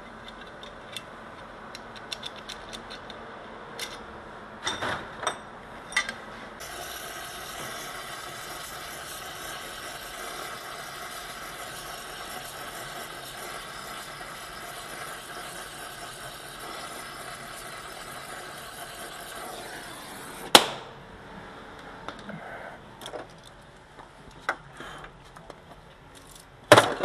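Small metal parts of a VW T2 accelerator pedal hinge clicking and rattling as they are handled and fitted. A steady hiss runs through the middle for about fourteen seconds. Two sharp knocks come later, one ending the hiss and one near the end.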